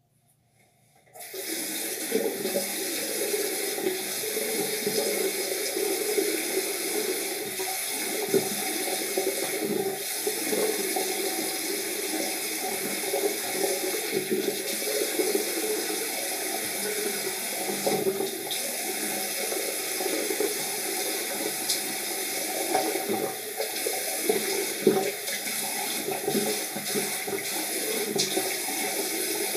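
Water tap turned on about a second in, running steadily into a sink.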